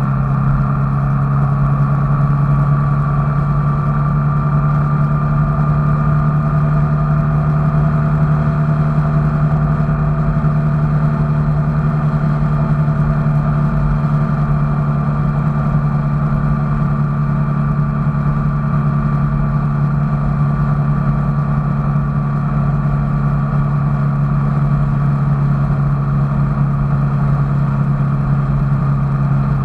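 A steady, unbroken engine drone, as of a vehicle running, with a few higher tones that drift slowly in pitch.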